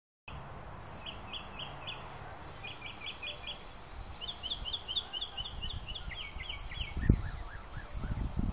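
A bird calling in quick series of short, high chirps, in groups of three to five notes that repeat every second or so, a few of the later notes sliding downward. Low rumbling thumps on the microphone come in about seven seconds in and are the loudest thing heard.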